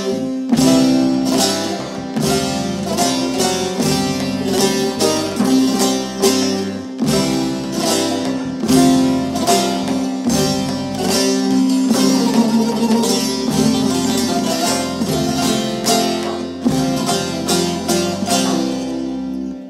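Turkish folk saz ensemble led by plucked bağlamas playing a slow zeybek tune in nine-beat meter, with a dense run of plucked notes over a steady low accompaniment.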